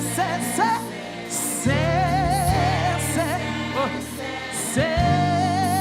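Gospel praise music: voices singing a worship song with vibrato over sustained bass chords and a steady cymbal beat, with held notes about two seconds in and near the end.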